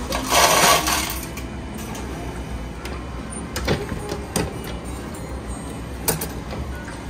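Cup-type soft-drink vending machine dispensing a drink into a paper cup: a loud rushing noise in the first second, then scattered mechanical clicks over a low steady hum.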